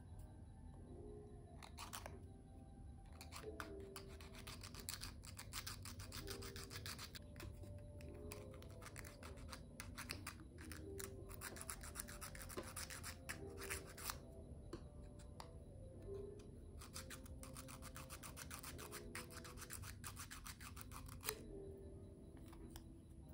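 A small wooden puzzle piece rubbed back and forth on a sanding block: fast, dry scratchy strokes in runs, with short pauses.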